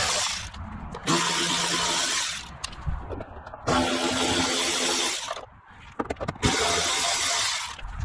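Cordless electric ratchet with a 7mm socket running in four short bursts with pauses between, backing out the door trim panel screws.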